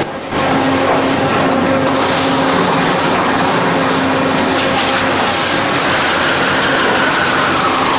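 Premier heavy-duty lathe running and machining a large workpiece: a loud, steady mix of machining noise and machine hum, with a brief dip right at the start and a faint whine that slowly falls in pitch near the end.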